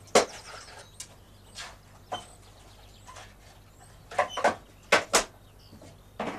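Sharp knocks and clicks of a small handled case being opened and handled: one loud knock just after the start, single clicks about a second apart, then a cluster of knocks about four to five seconds in. Birds chirp faintly in the background.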